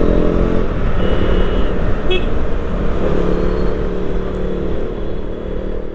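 Motorcycle riding in city traffic: its engine running steadily under wind rumble, with a vehicle horn tooting briefly about two seconds in. The sound grows quieter toward the end.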